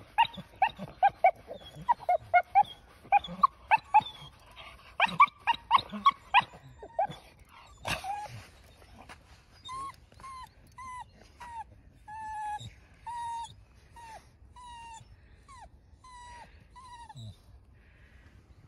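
Staffordshire bull terrier whining: a fast run of short, high yips and whines for the first several seconds, then a slower, quieter series of about a dozen short whines, each dropping in pitch at its end.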